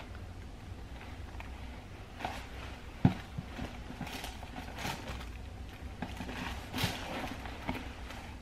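Handling noises: one sharp knock about three seconds in, then several short rustles, over a low steady hum.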